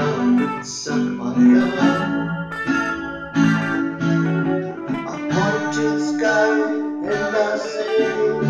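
Background music: a guitar-led song playing steadily, its chords changing every second or so.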